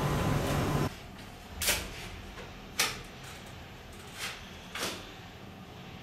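A loud steady rushing noise cuts off abruptly about a second in. Then come four short hard knocks and clunks of objects being handled, over quiet room tone.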